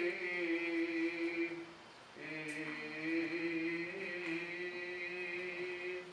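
A man's voice chanting Byzantine church chant in long held notes: one note of nearly two seconds, a short break about two seconds in, then a second note held steady for about four seconds.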